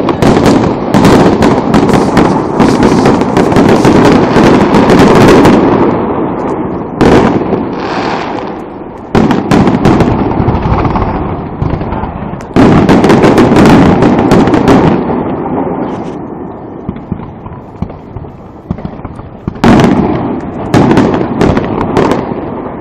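Aerial firework shells bursting in rapid volleys: many sharp bangs and crackles over a deep, continuous rumble. The barrage eases into a quieter lull about two-thirds of the way through, then picks up again with more bangs near the end.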